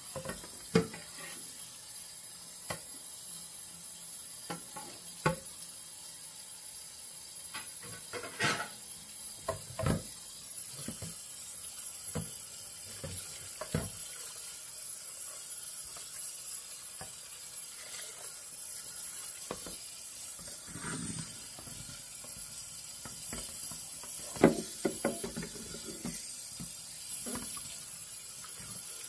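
Hand-washing a plastic bowl in a stainless-steel kitchen sink: water sloshing and dripping, with scattered knocks and clatters of the bowl against the sink. A sharp knock near the end is the loudest.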